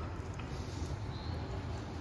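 Outdoor city ambience: a steady, uneven low rumble with a faint short high chirp about a second in.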